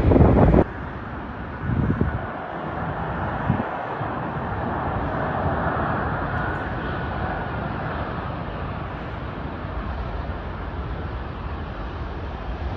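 Jet engines of a passing Airbus A380 airliner: a steady noise that swells to a peak around the middle and slowly eases off. A louder sound from the previous shot cuts off abruptly about half a second in.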